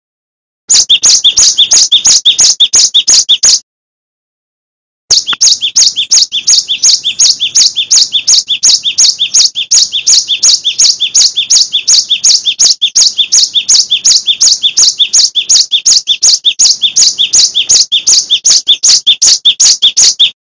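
Cinereous tit (gelatik batu) singing a fast run of sharp, high repeated notes, about five a second. The song stops for about a second and a half near the start, then resumes and runs on without a break.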